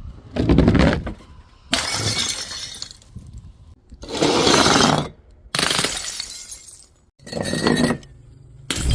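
Glass bottles shattering: about five separate breaks in quick succession, each with a sudden crash that dies away or cuts off abruptly.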